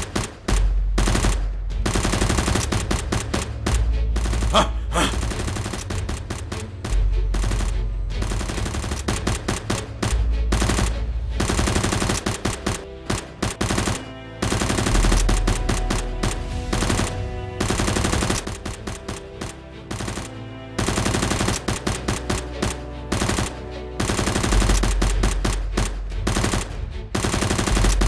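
Rapid bursts of automatic gunfire sound effects, shot after shot in quick runs with brief gaps, dubbed over the Nerf gunfight, with a heavy low bass pulse returning every few seconds.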